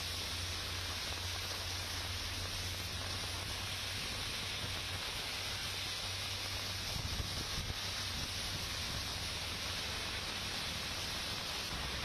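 Heavy rain falling in a steady hiss, with traffic moving on the wet road under it as a low drone. The traffic swells briefly about seven seconds in.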